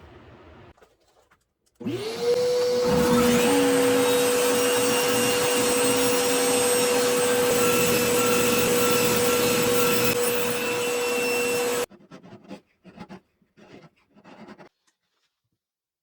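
An electric motor appliance switches on about two seconds in, quickly spins up to a steady whine over a loud rushing noise, runs for about ten seconds and then cuts off suddenly. A few faint clicks follow.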